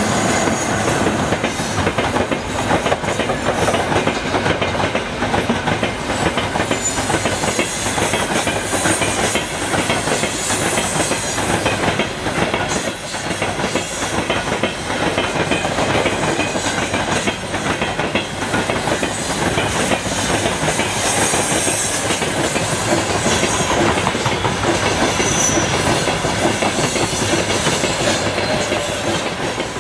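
Freight train of open gondola wagons rolling past at speed: a steady rumble with the continuous clatter of wheels over the rail joints.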